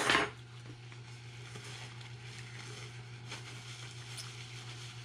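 Quiet eating at a table: a short rustling burst right at the start, then faint chewing and the soft handling of a paper napkin and plates over a steady low hum.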